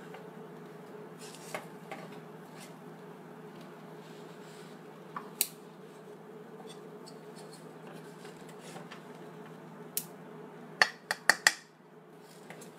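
Kitchen utensils clinking against cookware and dishes: a few scattered light clicks, then a quick run of four sharp clinks about eleven seconds in, over a steady low hum.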